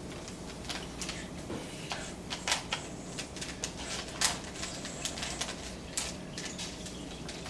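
Plastic Rubik's cubes being turned fast by hand, a rapid, irregular run of clicks as their layers snap round, with a couple of louder clacks about two and a half and four seconds in.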